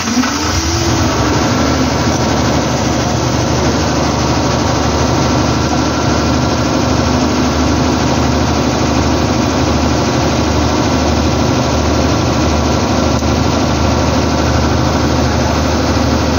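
Generator set's engine just started, picking up speed in the first second, then running steadily.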